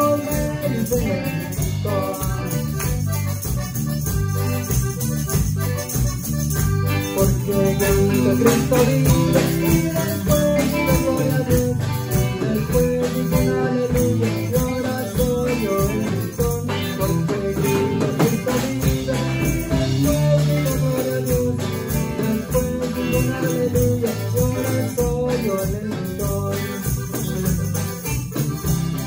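Live band music: an accordion playing held melody notes over drums, bass and electric guitar, with a jingling percussion beat, steady throughout.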